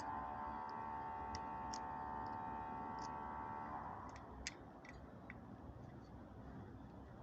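Booster pump motor humming steadily, then cutting out about four seconds in, followed by a single sharp click and faint ticking.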